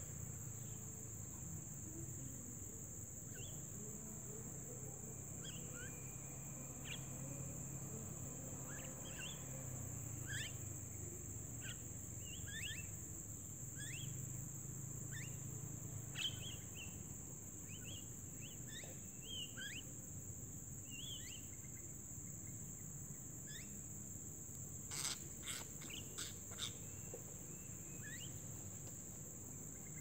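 Short rising chirps of mynas scattered throughout, over a steady high-pitched insect drone, with a few sharp clicks near the end.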